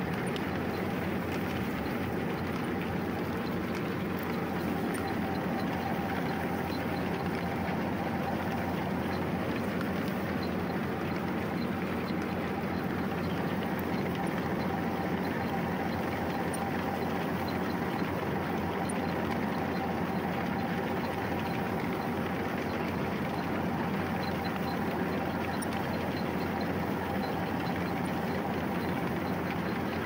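Tractor running steadily while it drives a PTO-powered potato digger through the soil, the digger's shaft and gearbox turning without pause. A faint steady whine runs through the dense mechanical noise.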